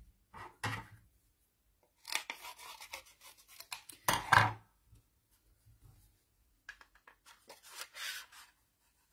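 A handheld craft paper punch and a piece of cardstock being handled on a desk: short spurts of scraping, rustling and clicking, with a louder knock about four seconds in.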